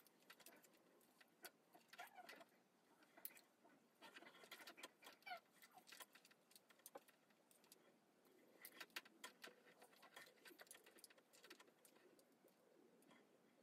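Near silence with faint scattered clicks and rustles from handling a 1-inch curling iron and wrapping hair around its barrel.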